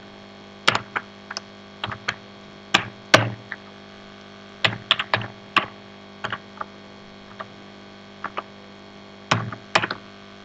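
Computer keyboard being typed on: scattered single keystrokes and short runs of clicks with pauses between them, over a steady low electrical hum.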